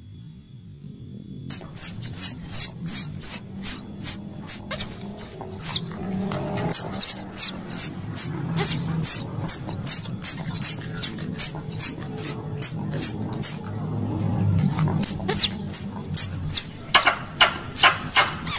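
Squirrel calling: a long series of short, sharp, high-pitched chirps, about three or four a second, starting about a second and a half in and growing louder and fuller near the end, over a low steady rumble. It is a lure call used to draw in pest squirrels.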